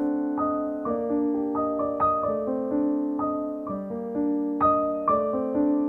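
Slow piano music, its held notes ringing on and overlapping, with a new note about every half second.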